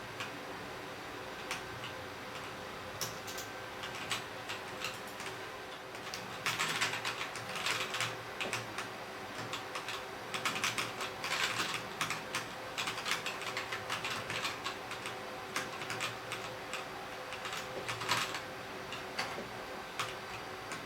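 Typing on a VicTsing PC175A mechanical gaming keyboard. Scattered single keystrokes at first, then fast runs of keystrokes from about six seconds in, again a few seconds later and near the end.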